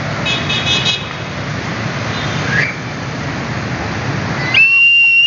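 Train whistle (còi xe lửa) sounding: a brief chord-like toot of several high pitches about half a second in, then a loud, high, steady whistle tone starting near the end, over steady background noise.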